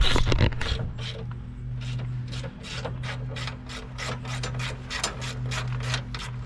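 Hand ratchet wrench clicking in quick, even strokes, about four a second, as bolts are worked loose, after a brief louder rattle at the start. A steady low hum runs underneath.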